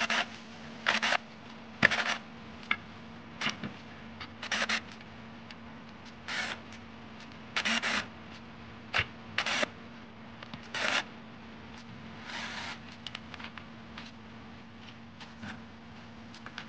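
Cordless drill-driver running in about a dozen short bursts as it turns the screws holding power transistors to an amplifier's aluminium heatsink, with a sharp click about two seconds in. A steady low hum runs underneath.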